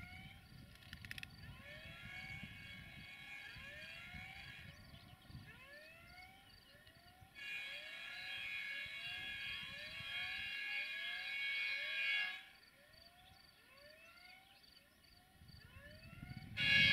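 A 060-DA (LDE2100) diesel locomotive's horn sounds three long chord-like blasts, each louder than the last as the locomotive approaches. The first is faint, about a second and a half in, and lasts about three seconds; the second lasts about five seconds; the third starts near the end, as a low engine rumble grows.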